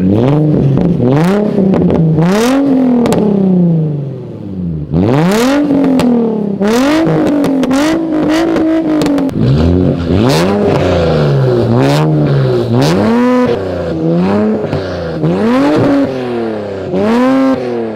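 Nissan 350Z engine being revved in free rev, about a dozen blips in which the pitch climbs and falls back, with a short lull about four to five seconds in.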